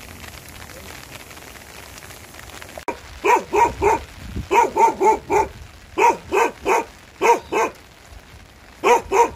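Steady rain patter; from about three seconds in, a dog barks over it again and again in quick runs of two to four barks.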